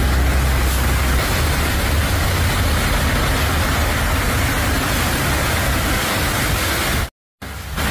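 Heavy rain and the spray of car tyres on a flooded highway: a steady, dense hiss over a deep rumble that eases about a second in. The sound cuts out completely for a moment near the end.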